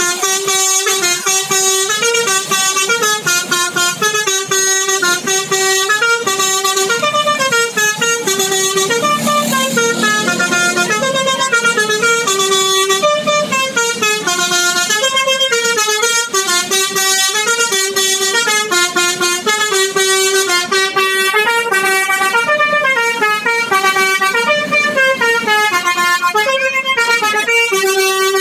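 Bus 'telolet' Basuri multi-tone horn playing a long unbroken tune of short stepped notes, several a second.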